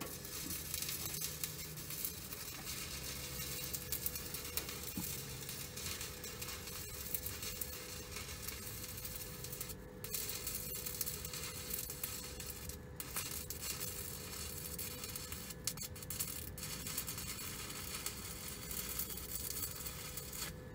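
Stick-welding arc from a Deko welder running steadily on a steel RV frame crossmember. It starts at the beginning, breaks off briefly twice, about ten and thirteen seconds in, and stops near the end.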